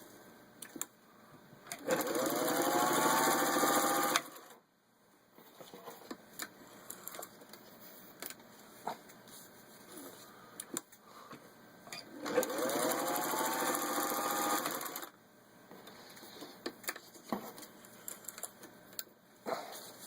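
Singer 201 sewing machine stitching through four layers of vinyl upholstery in two runs of two to three seconds each, its pitch rising as it gets up to speed and then holding steady. Light clicks and handling noises come between the runs.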